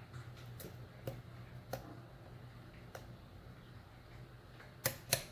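Scattered light clicks of a lock pick and tension wrench working the pin stack of a Titan euro-profile cylinder padlock as the pins are set again, with two sharper clicks near the end.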